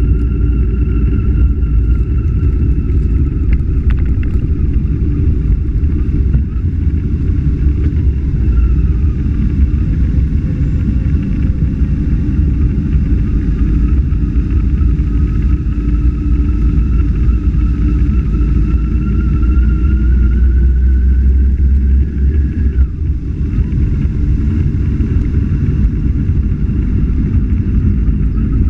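Motorcycle engine running steadily while riding, heard from an onboard camera under a heavy low rumble of wind and road. The engine note drifts slowly, climbing for a few seconds and then dropping about 23 seconds in.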